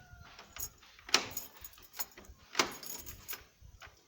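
Newly fitted mortice lock being worked: several sharp metallic clicks and rattles spread over a few seconds.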